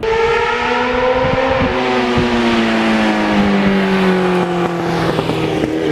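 1991 Yamaha FZR1000's inline-four engine running under way, its pitch easing steadily down as the revs fall, then jumping back up near the end.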